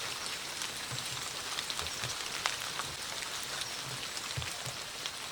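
Steady autumn rain falling, an even patter thick with many sharp drop ticks, and now and then a dull low drip knocking on a surface.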